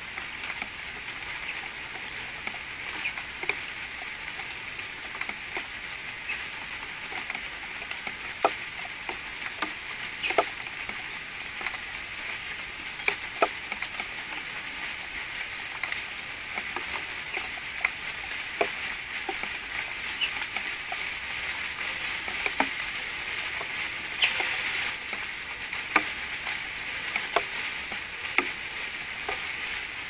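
Rain falling in a garden: a steady hiss with scattered sharp drips tapping every second or two.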